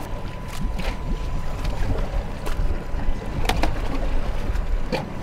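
Wind rumble on the microphone over water lapping at the hull, broken by about half a dozen sharp, irregular knocks and clicks as a crab trap is baited and its lid shut.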